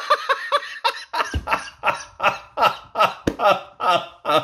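A man laughing in disbelief, a steady run of short voiced bursts about three a second.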